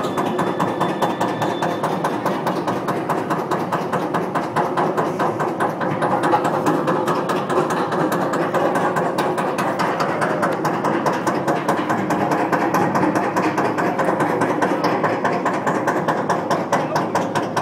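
Wildfire roller coaster train climbing its chain lift hill: the lift chain running with a steady drone under a fast, even clicking.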